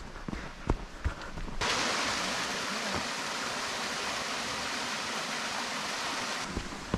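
A small waterfall splashing down a rocky gully: a steady rushing hiss that starts abruptly about a second and a half in and stops just as suddenly near the end. Before it and after it come the sharp, spaced footfalls of running on a dirt trail.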